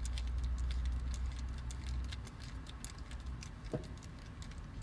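Irregular small ticks and clicks of a precision screwdriver turning a tiny screw into a plastic toy car, with light handling of the toy, and one slightly louder click near the end.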